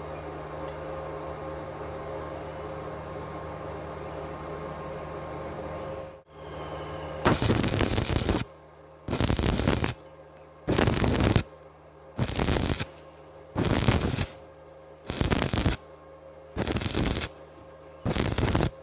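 Stick-welding arc on thin steel square tube, 2.5 mm rod at 75 amps, crackling in short bursts of under a second: about eight of them, roughly one every second and a half, as the arc is struck and broken in turn to keep the heat down on thin metal. Before the first burst there is a steady hum for about six seconds.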